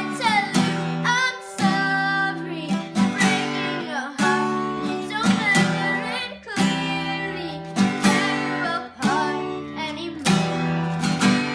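Acoustic guitar strummed in a steady rhythm, with a singing voice over it.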